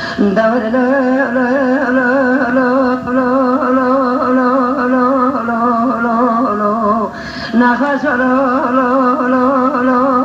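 A woman singing a Kurdish folk song in long held notes with a strong, wavering vibrato, pausing briefly about seven seconds in before carrying on.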